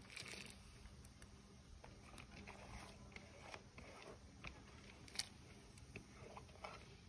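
Faint scattered taps and soft plops as sliced onion and grated carrot are tipped and scraped from a plastic bowl into a pot of fish broth, with a sharper tap about five seconds in.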